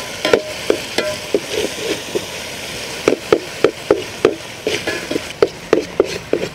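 Long steel spoon stirring and scraping sauce in an aluminium pot, striking the pot about three times a second with a short pause midway, over the sizzle of the sauce base frying in a little oil.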